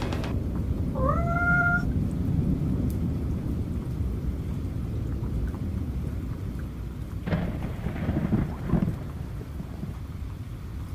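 Low rumbling thunder over steady rain, with a single cat meow about a second in that rises in pitch and then holds. Near the end come two sharper, louder thunder crackles.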